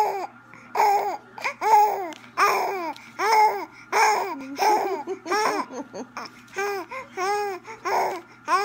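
Three-month-old baby cooing and babbling: a string of short, high-pitched vocal sounds, each rising and falling in pitch, about one to two a second.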